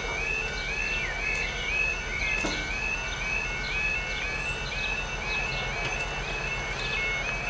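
Level crossing yodel alarm sounding: a warbling tone that steps up in pitch and repeats about three times a second, the warning that the barriers are lowering for an approaching train. A single knock about two and a half seconds in.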